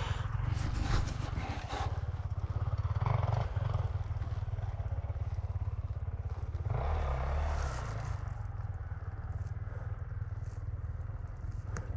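Dirt bike engine running at low revs with a steady rapid pulse, rising briefly about seven seconds in.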